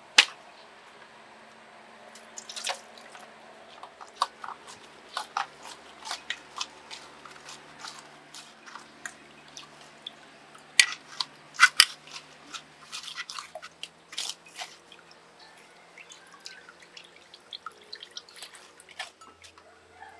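Irregular clicks, taps and small drips of hands-on kitchen prep work, sharp and uneven in spacing, with a few louder knocks near the start and about halfway through.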